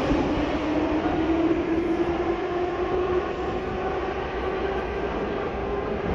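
Metro train running in the station: a steady rumble with a humming motor whine that rises a little in pitch in the first second or so, then holds and slowly fades.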